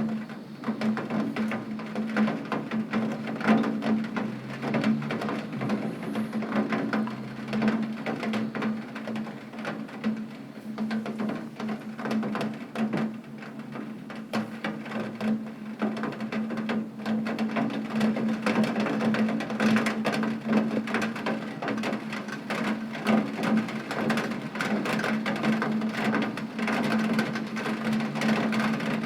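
Rain drumming on a tin roof: a dense, uneven patter of drops striking metal, with a steady low hum underneath.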